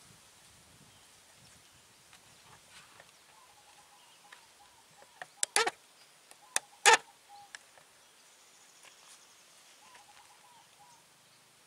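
A few sharp clicks and knocks in two clusters around the middle, the second cluster the loudest, over a quiet outdoor background with faint high chirps.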